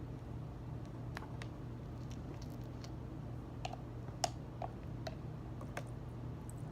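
Scattered small clicks and soft wet squelches from a glue-and-water slime mixture being worked in a plastic mixing container, about a dozen light, irregular ticks.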